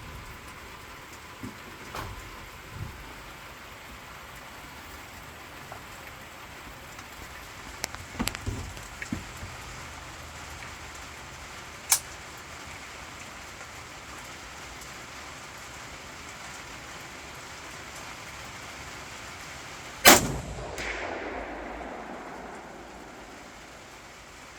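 One shot from an AKM-pattern rifle about twenty seconds in, by far the loudest sound, its report rolling away for a few seconds. Before it there is only a steady hiss with a few faint clicks and knocks.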